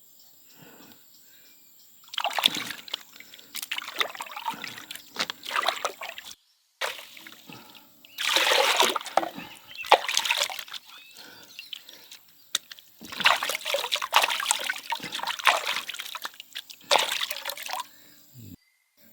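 Water splashing and trickling in four bursts of a few seconds each, with quieter gaps between.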